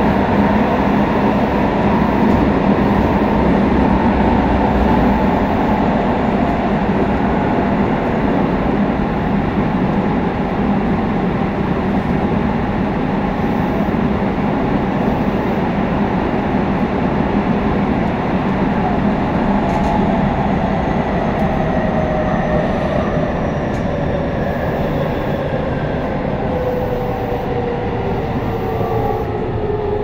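Tobu 9000-series EMU (set 9152) running through the subway tunnel, heard from inside the car: a steady rumble of wheels and tunnel noise under the whine of its GTO-VVVF inverter and traction motors. From about two-thirds of the way in, the whine falls steadily in pitch as the train slows.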